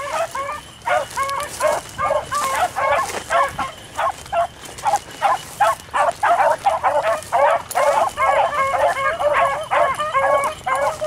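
A pack of beagles in full cry on a rabbit's track: many short, overlapping barks from several hounds at once, coming rapidly and without a break.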